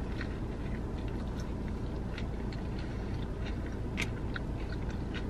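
A person biting into and chewing a sub sandwich on a soft bread roll: small irregular wet mouth clicks, with one sharper click about four seconds in, over a steady low rumble.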